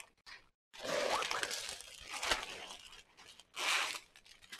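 Crinkling and rustling of a bundle of small clear plastic bags of diamond painting drills being pulled out and handled, in uneven bursts, with a brief silent gap about half a second in.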